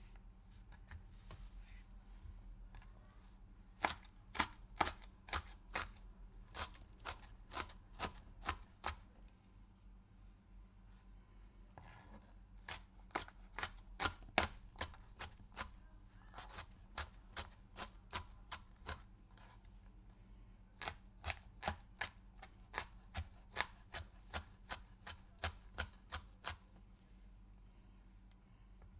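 Knife cutting a pepper on a cutting board: three runs of quick, sharp knife strikes on the board, about two to three a second, with softer slicing sounds between the runs.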